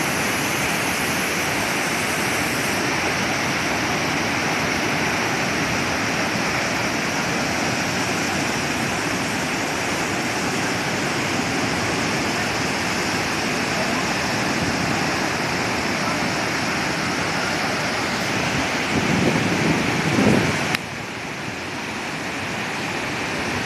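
Purva Falls, a large waterfall, making a loud, steady rush of falling water. Near the end a low rumble rises briefly, then the sound drops suddenly and builds back up.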